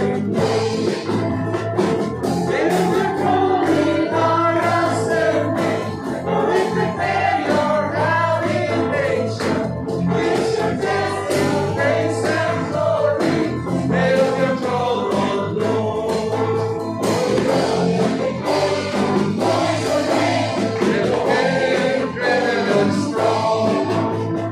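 A live worship band plays a praise song, with electric and acoustic guitars and keyboard under a sung melody that runs without a break.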